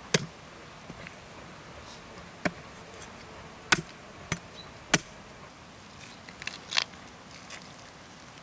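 A skinned lamb's head being split open on a wooden chopping stump: about six sharp, separate knocks and cracks of bone and blade on wood, a second or so apart.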